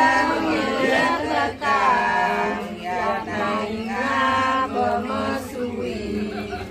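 Several voices singing a Balinese Hindu ritual chant together, in long wavering notes with short breaks between phrases.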